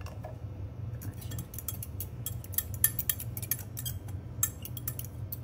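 A metal utensil stirring dressing in a glass Pyrex measuring cup, with quick, irregular clinks against the glass starting about half a second in.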